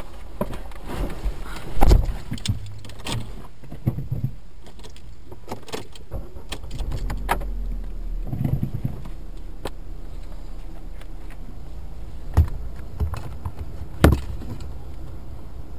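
Sounds inside a stopped car: a steady low engine rumble under scattered clicks and rattles, with a few sharp thumps, the loudest about two seconds in and two more near the end.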